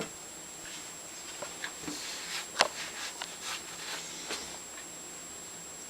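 Small metal clicks and taps as the parts of a Stanley No. 113 circular plane are handled and fitted together during reassembly, with one sharper click about two and a half seconds in.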